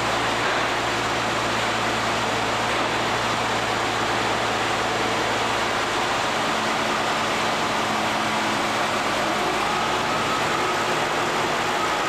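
1953 Oliver 88 tractor's six-cylinder diesel engine running steadily, with a slight change in its note about halfway through.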